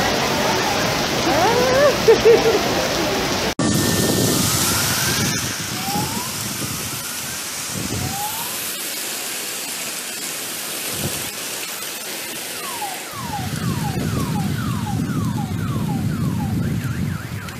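Heavy downpour: a steady hiss of rain pouring onto flooded streets and roofs, with a few sharp loud sounds about two seconds in. Near the end, a short falling chirp repeats about twice a second.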